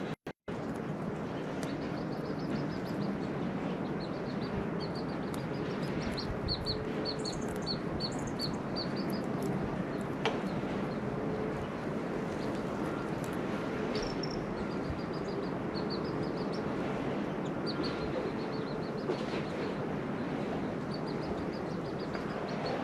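Small birds chirping in quick series of short high notes, over a steady outdoor background hiss.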